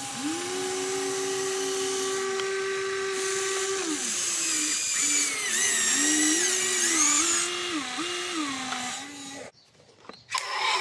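Electric motors of an RC excavator whining as the boom, arm and bucket move, the pitch stepping up and down with each movement. The sound drops out briefly near the end.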